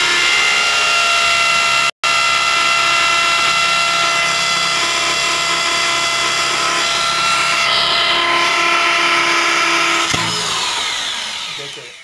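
Corded electric drill boring into the wooden panel of a nest box, its motor running at a steady high whine. A brief dropout comes about two seconds in, and the motor winds down and fades near the end.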